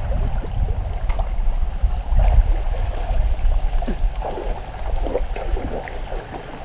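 Wind rumbling on the microphone, with water sloshing and splashing as people wade through muddy pond water.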